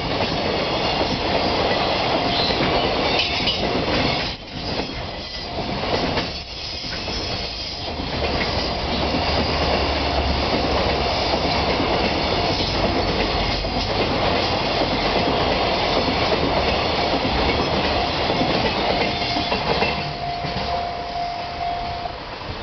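Freight train of container flat wagons rolling past at speed, wheels clattering over the rail joints, with a steady whining tone for a few seconds near the end.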